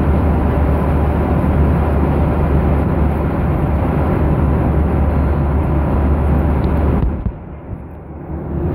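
Jet airliner cabin noise in cruise: a steady low engine drone under a rush of air. About seven seconds in it drops away abruptly and returns about a second and a half later.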